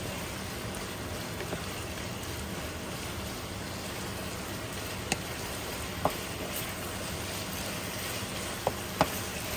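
Beef strips in sauce sizzling steadily in a nonstick frying pan while a wooden spatula stirs them, with a few sharp knocks of the spatula against the pan in the second half.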